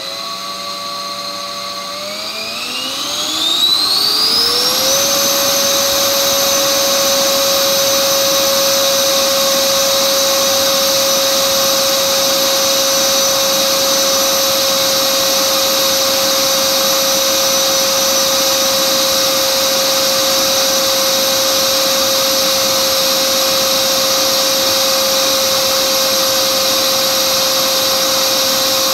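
Dynamax electric ducted fan driven by a TP-5870-530kv brushless motor, spooling up over about three seconds from low throttle to full power, then running steady with a loud high-pitched whine over rushing air, holding near 32,000 rpm at about 9 kW.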